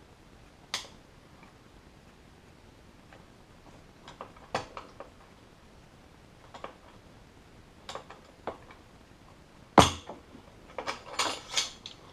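Scattered metal clicks and knocks from tire-changing work: a Baja No Pinch tire tool being worked around a motorcycle wheel's aluminum rim as the tire bead is pushed on. The loudest knock comes about ten seconds in, followed by a quick run of clatters.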